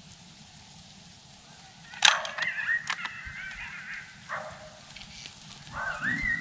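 Coyotes yipping and howling. A sudden burst of high, wavering yips comes about two seconds in, a short call follows, and a long wavering howl begins near the end.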